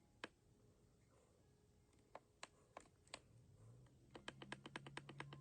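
Faint clicks of the buttons on an Emerson CKS1850 digital alarm clock radio as the alarm time is set. A few scattered single presses are followed by a quick run of about seven clicks a second near the end. A faint low hum comes in past halfway.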